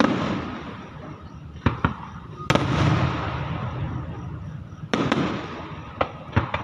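Aerial fireworks shells bursting: a run of sharp bangs, the loudest about two and a half seconds in, each trailing off in a rumble and crackle.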